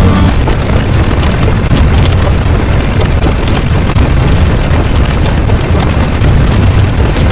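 Loud continuous rumbling noise, heaviest in the low end with hiss across the range, like a sustained explosion or eruption sound effect; music cuts off just after the start.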